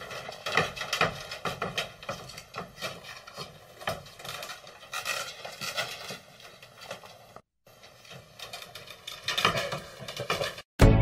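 A cat's claws scratching and catching on a screen door's mesh as it climbs, with the door frame rattling: irregular clicks and scrapes throughout.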